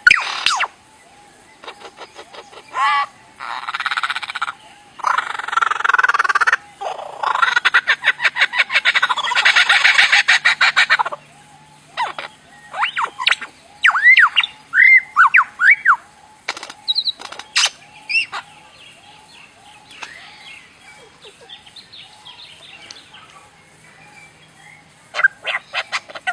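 A bird with a wide repertoire of strange calls: bursts of harsh rasping squawks for the first half, then a run of short rising-and-falling whistled notes and sharp clicks, fading to softer chatter near the end.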